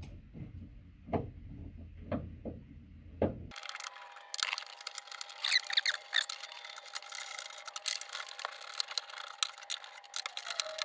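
Hand screwdriver backing screws out of a sheet-metal fluorescent light fixture. Scattered clicks and knocks come first. From about three and a half seconds in there is a dense run of small ticks and scrapes over a faint steady tone.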